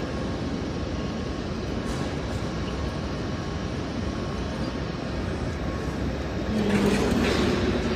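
Berlin S-Bahn class 481/482 electric train standing at the platform with a steady rumble. About six and a half seconds in, it starts to pull away: a louder motor hum with a burst of hiss.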